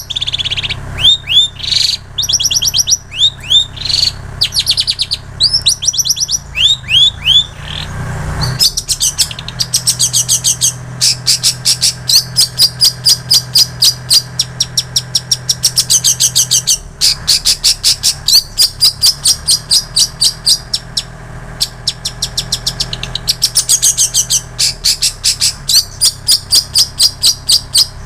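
Long-tailed shrike (cendet) singing a song full of mimicked phrases of other birds, such as plain prinia and canary. It opens with a series of quick up-sweeping whistles, then from about nine seconds switches to fast, rapidly repeated chattering notes in long runs. A steady low hum runs underneath.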